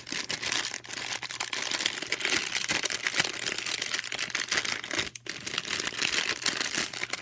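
Crinkling and rustling of a plastic blind bag being torn open and worked by hand, a steady run of sharp crackles with a brief pause about five seconds in.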